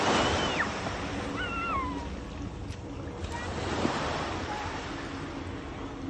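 Gentle surf washing onto a beach, swelling at the start and again about four seconds in. A couple of short high-pitched cries carry over it in the first two seconds.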